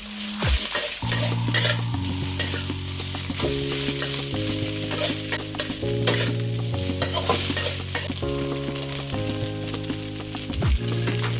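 Fried rice being stir-fried in a hot pan: steady sizzling with the repeated scrape and clatter of a spatula tossing the rice. Soft background music with held chords plays underneath.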